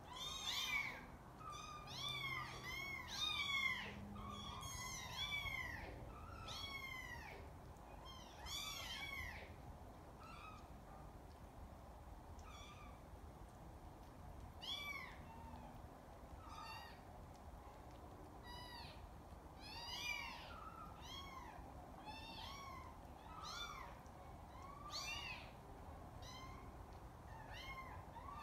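Several 3.5-week-old kittens mewing, a run of short high-pitched calls one after another. The calls come thick and fast through the first ten seconds or so, then more sparsely.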